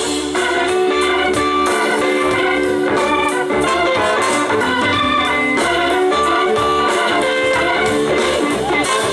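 Live blues-rock band playing an instrumental passage: electric guitar over organ, bass and drums.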